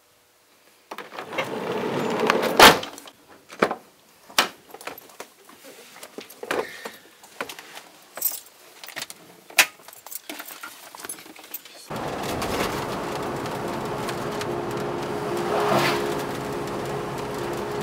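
Scattered clicks, knocks and rustles in a Volkswagen T5 camper van's cab as a dog moves about the front footwell, the loudest a sharp crack about three seconds in. About twelve seconds in this switches suddenly to the van's steady driving noise, with background music over it.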